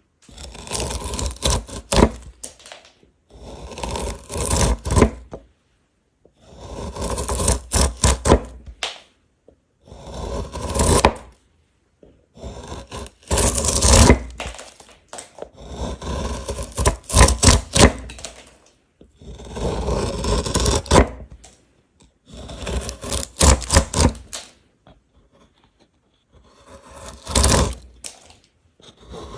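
Wood being worked with a hand tool: repeated scraping strokes in bursts of a second or two with short pauses between, mixed with knocks and cracks.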